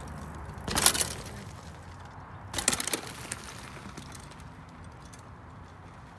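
Mountain bike tyres crunching over dry leaves and twigs on a dirt trail: two short crackling bursts, one about a second in and another just before the halfway point.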